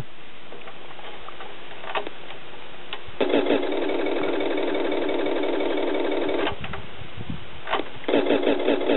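Toy fire truck's electronic engine sound effect from its built-in speaker: a rapid, evenly pulsing engine drone of the engine starting and running. It plays for about three seconds, stops, then starts again near the end, each time after the click of a button press.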